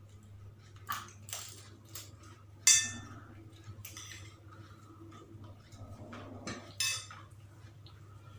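Metal cutlery clinking and scraping against china plates and a bowl during a meal: several short clinks, the loudest about two and a half seconds in with a brief ring. A steady low hum runs underneath.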